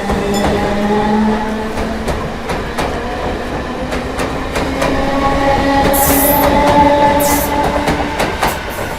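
Train pulling out of a station: a steady whine with the wheels clicking over the rail joints. Two short bursts of hissing air come about six and seven seconds in.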